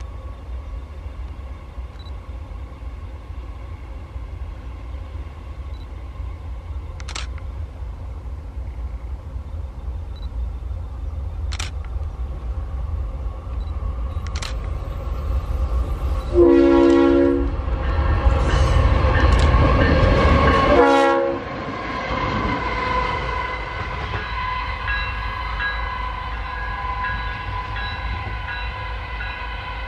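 Diesel locomotive approaching with a steady low engine rumble, then sounding its air horn for about five seconds, a short blast followed by a longer one that cuts off suddenly. The engine runs on afterwards with a steady whine.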